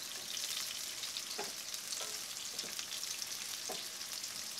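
Chopped onions, peppers, spring onions and chillies sizzling in hot oil in a frying pan, stirred with a wooden spatula: a steady high frying hiss with a few soft strokes of the spatula.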